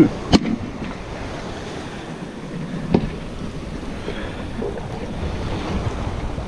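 Sea surf washing against shoreline rocks, with wind buffeting the microphone. A sharp click comes just after the start, and a fainter knock about three seconds in.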